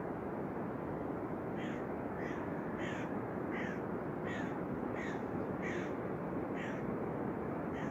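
A bird calling over and over: about nine short calls, one every two-thirds of a second or so, starting about a second and a half in. Underneath is the steady rush of storm rain.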